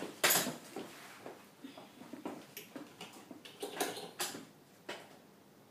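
Handling noises of a phone and its cable: a sharp click about a quarter second in, then a scatter of lighter clicks and taps.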